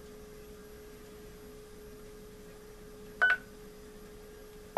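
A mobile ham radio gives one short electronic key beep about three seconds in as a button on its keypad microphone is pressed, over a faint steady hum.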